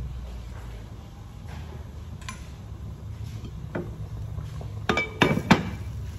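A glass pot lid is lifted off a cooking pot and set back down on its rim, with a quick run of three or four sharp clinks about five seconds in. A low steady rumble runs underneath.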